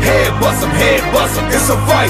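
Background music: a hip-hop style track with a steady beat and a vocal line over it.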